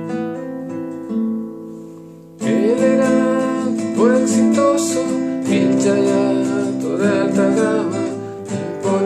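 Nylon-string classical guitar playing a song introduction: a chord rings and fades out, then strong strumming starts about two and a half seconds in and carries on steadily.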